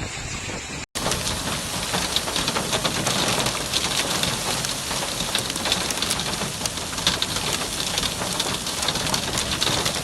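Heavy storm downpour pelting hard surfaces: a dense, steady crackle of countless sharp impacts. About a second in, it cuts in abruptly after a short stretch of wind noise.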